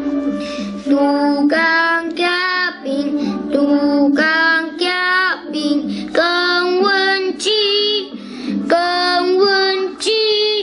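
Young voices singing a song with held, bending notes over musical accompaniment.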